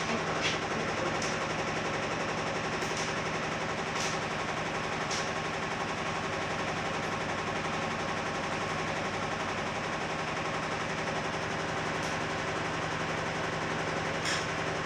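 LG TR15WV5 washing machine on its spin cycle, running with a steady fast rattling clatter and a sharp knock every second or so, spaced unevenly, here and there. The owner gets this noise even with a light load of a few towels and doubts it is normal; a service technician called it normal spin noise and greased the dampers.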